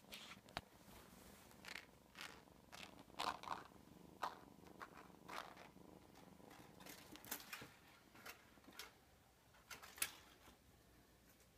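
Tortoiseshell kitten purring softly, with faint irregular clicks and rustles every second or so.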